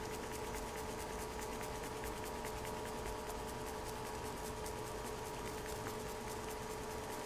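Steady faint electrical hum with a few fixed tones over a light hiss, no beeps or voice.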